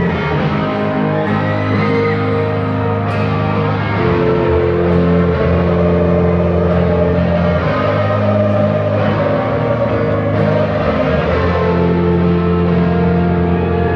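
Live rock band playing, with long held electric guitar chords over bass and faint drum hits about every two seconds.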